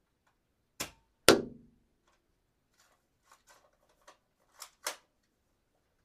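Dart gun: a click, then one loud shot with a short ringing tail about a second in, followed by a scattered run of light mechanical clicks and two sharper clicks near the end as the gun is cocked.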